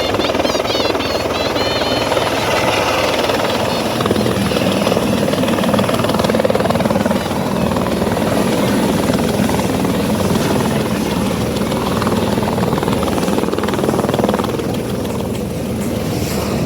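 Helicopter's engine and rotor running loud and steady, close by.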